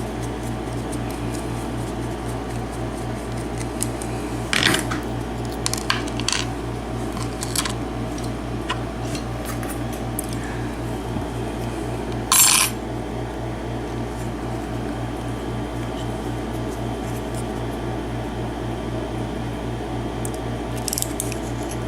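Small metallic clicks and clinks from a pin-tumbler lock cylinder and tools being handled as the lock is taken apart, with one louder metal clatter about halfway through. A steady low electrical hum runs underneath.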